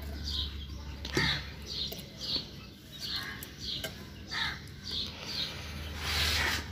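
Birds calling in a quick series of short, falling chirps, about two a second, over a low steady hum. A brief rush of noise comes near the end.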